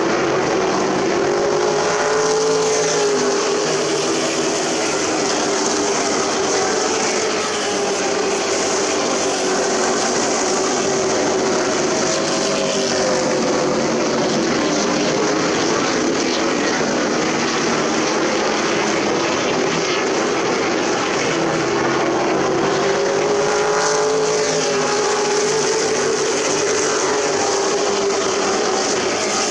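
Race truck engines running at speed around the short oval, a pack of trucks whose engine pitch swells and falls as they come by, about every ten seconds.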